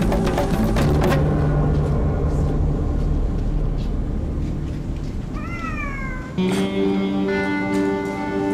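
Background music, with a small wild cat meowing once about five seconds in: a short call that rises then falls in pitch.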